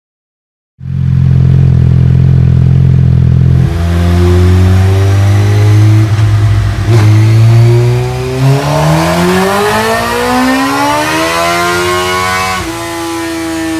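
Suzuki GSX-R600's 599 cc inline-four running on a chassis dynamometer through an M4 GP slip-on exhaust with its dB-killer baffle removed. It runs steadily at first, then the revs climb smoothly for about five seconds in a dyno power run and drop suddenly near the end.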